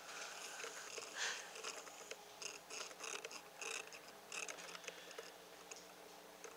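Faint, irregular scratching and clicking as Saint Bernard puppies paw and mouth the wooden edge of their whelping box.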